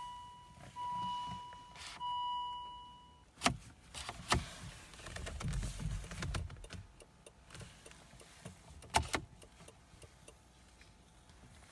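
Volvo V50 warning chime giving long, even beeps at one steady pitch for the first three seconds, the alert for a steering column lock fault. After it come a few sharp clicks and some rattling, with the loudest click about nine seconds in.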